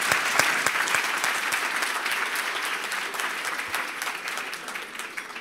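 Audience applauding, a dense clapping that slowly dies down toward the end.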